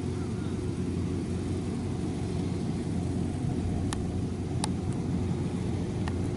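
Kubota 93 combine harvester running steadily as it cuts and threshes rice, a constant low engine and machinery drone. A few faint sharp clicks come about four, four and a half and six seconds in.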